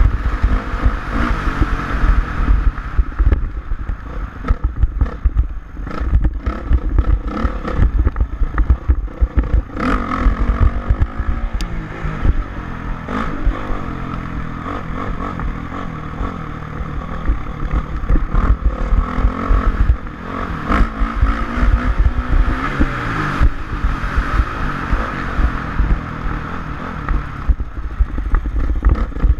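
Motocross bike engine running and revving up and down, with frequent knocks and rattles throughout.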